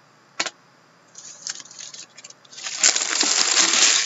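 Trading cards and pack wrappers being handled, with a single click just under half a second in, then scattered rustles that become a loud, dense crinkling and rustling in the last second and a half.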